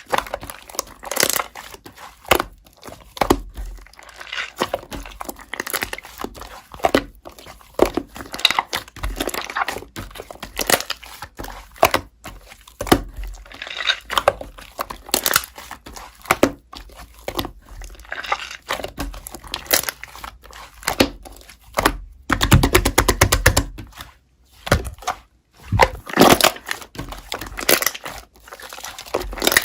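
Slime being squeezed and pulled apart by hand, giving irregular sticky crackling and popping, with a denser run of rapid crackles about three-quarters of the way in.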